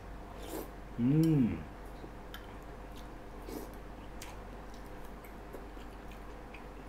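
A person eating soup with a spoon: faint scattered ticks of chewing and the spoon. About a second in comes a short hummed "mmm" of enjoyment, its pitch rising then falling.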